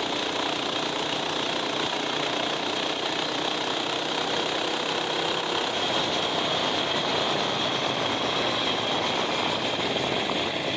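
A mini bike's small engine running at a steady speed while the bike is ridden along, holding an even note throughout.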